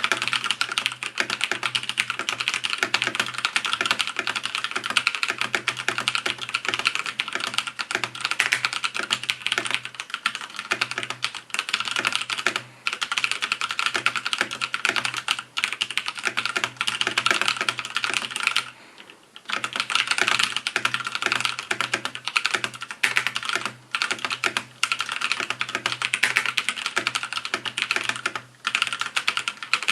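Fast, continuous typing on a Nixeus Moda V2 mechanical keyboard with Kailh Brown switches: a dense clatter of keystrokes with one brief pause about two-thirds of the way through.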